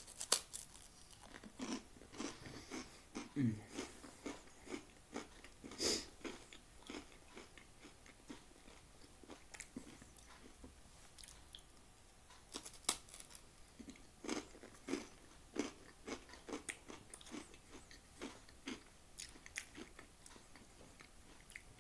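Close-up chewing and crunching of crispbread (knäckebröd) topped with ham and soft cheese: a bite near the start, then crackly crunches at an uneven pace, with a sparser stretch in the middle.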